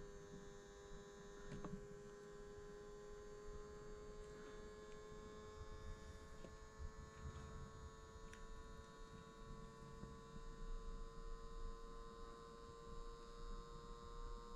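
Faint steady electrical hum made of several steady tones, the lowest slowly rising a little in pitch, with a few faint clicks scattered through it.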